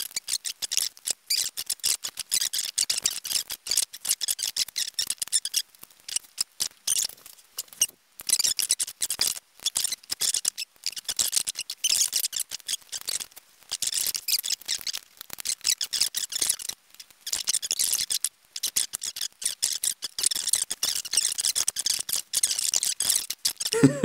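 Quick, dense small clicks, taps and crinkles as the original iMac keyboard's plastic membrane sheet and metal backplate are handled and fitted back together, with a few brief pauses.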